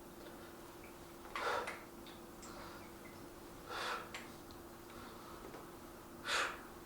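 A man's forceful breaths, a sharp exhale about every two and a half seconds, three in all, in rhythm with lifting reps during a dumbbell arm set. A faint steady hum runs underneath.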